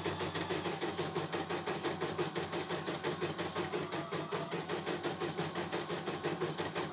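CNY E900 computerized embroidery machine stitching a test design at raised speed, its needle going in a rapid, even rhythm. The machine is running smoothly, with no trouble.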